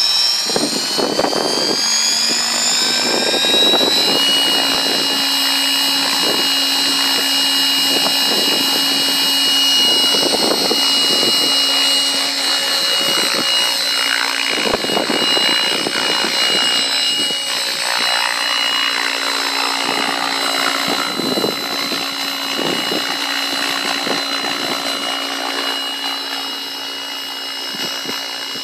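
700-size radio-controlled helicopter spooling up, its high whine rising over the first few seconds and then levelling off. It then hovers with a steady whine over the pulsing noise of the main rotor.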